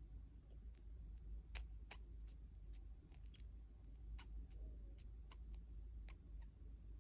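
Faint, sharp clicks and ticks at irregular intervals, roughly two a second, over a low steady background rumble.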